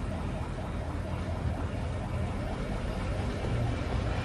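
Steady low engine rumble heard from inside a car's cabin.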